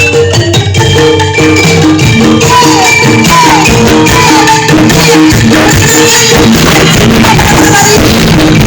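Live campursari music with angklung, played loud through a sound system: a quick repeating figure of short notes over busy percussion.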